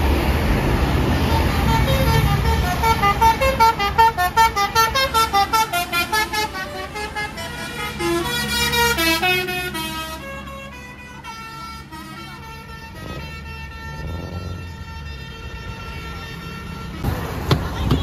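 A bus's telolet basuri musical horn playing a tune: a quick run of short notes, about four a second, then a few longer held notes that grow quieter, over the bus's engine rumble.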